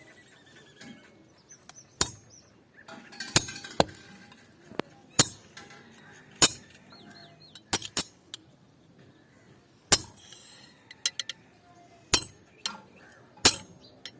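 Hammer blows on metal in a blacksmith's workshop, about ten sharp ringing clinks at an uneven pace of roughly one every second or so, with a quick double strike now and then.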